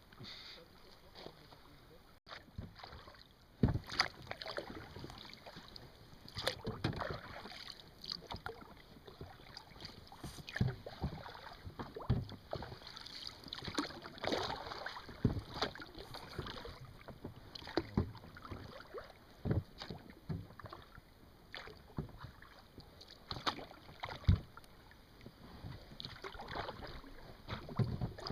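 Paddle strokes from an inflatable boat: irregular splashes and dips in the river water every second or two.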